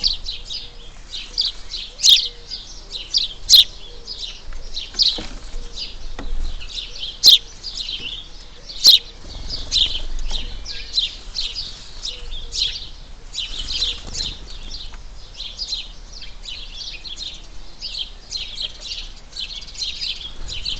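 Many small birds chirping continuously in a busy, overlapping chatter. A few louder, sharp calls stand out in the first half.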